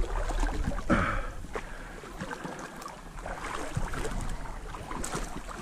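River water sloshing and lapping around an angler's waders while wading, with a low rumble in the first second or so.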